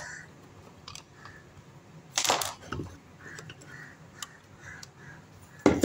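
Sharp clicks and knocks of the electric iron's plastic housing being handled and pulled apart, the loudest about two seconds in and near the end.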